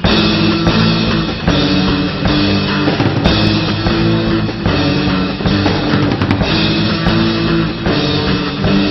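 Rock music with a drum kit and guitar.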